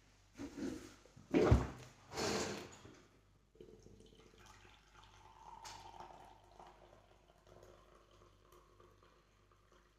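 Coffee being served from a thermos jug: a heavy thump about a second and a half in, then a short splash of pouring liquid, followed by faint handling noises.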